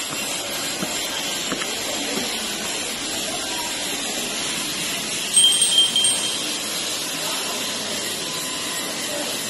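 Steady hiss of background noise, with a brief high ringing tone standing out about five seconds in.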